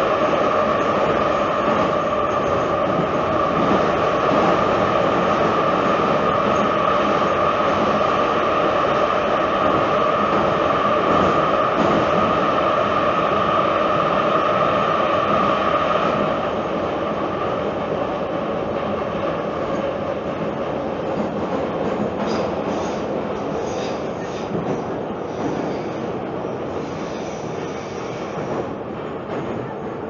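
Tbilisi Metro train running between stations, heard from inside the carriage: dense steady running noise with a steady whine on top. The whine stops just past halfway, and the running noise then eases off gradually.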